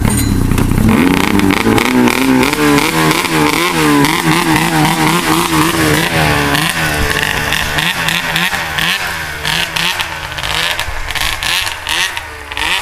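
Arctic Cat 600 snowmobile's two-stroke engine revving, its pitch rising and falling again and again, somewhat quieter in the last few seconds.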